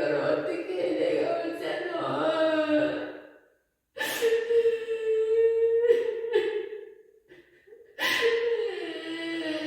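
Background music with a singing voice holding long notes, breaking off briefly twice.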